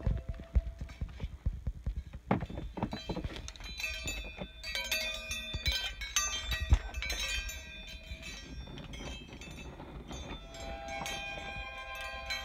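Knocks and handling thumps mixed with metallic clinking and ringing, chime-like tones that come and go, busiest about halfway through and again near the end.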